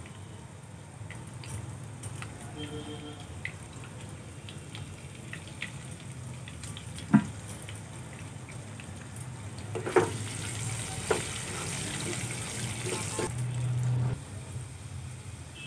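Potato chunks frying in hot oil in a nonstick wok, a low sizzle. There are three sharp knocks, about 7, 10 and 11 seconds in. From about ten seconds in, the sizzle grows louder as the potatoes are stirred with a wooden spatula, then it drops suddenly about a second and a half before the end.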